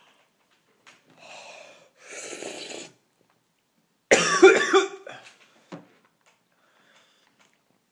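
A man coughing from the burn of a just-eaten Carolina Reaper pepper in his throat: two hard breaths out, then one loud, harsh cough about four seconds in, followed by a couple of small coughs.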